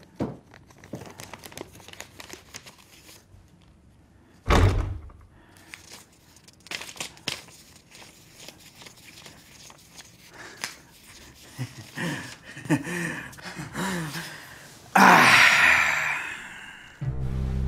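A door thuds shut about four and a half seconds in, then paper banknotes rustle and click as they are handled and counted. Near the end a man makes brief vocal sounds and a loud breathy exhale, and music with brass comes in at the very end.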